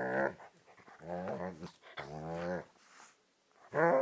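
Rough collie vocalizing in a series of warbling, grumbling moans: one fading out at the start, two longer ones in the middle and a short, louder one near the end.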